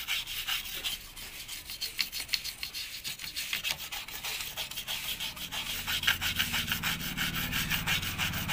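Brush scrubbing the solder side of an inverter circuit board wet with thinner, in quick, even back-and-forth strokes.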